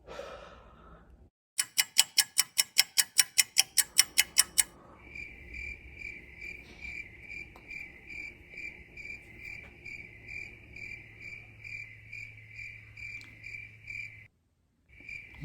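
Cricket chirping in a steady run of short, even chirps, about two or three a second. It is preceded by about three seconds of loud, rapid clicking, around five clicks a second, and drops out briefly near the end.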